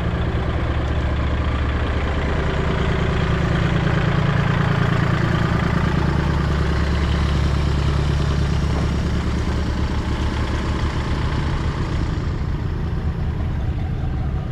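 Truck engine idling steadily, with a low, even hum that swells a little through the middle and then settles.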